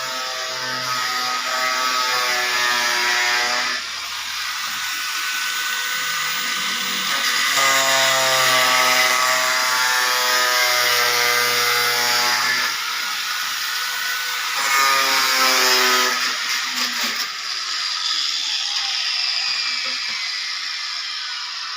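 Power drill running in three long runs, a steady pitched motor whine that drops away between runs.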